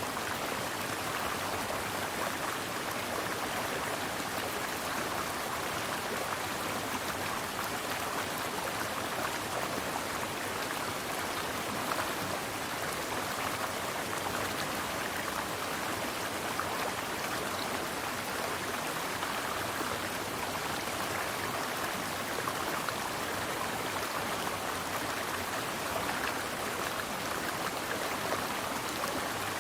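Mountain stream flowing, a steady rush of water.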